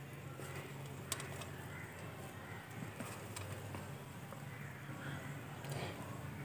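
Quiet room tone: a faint steady low hum with a couple of faint clicks, one about a second in and another past the middle.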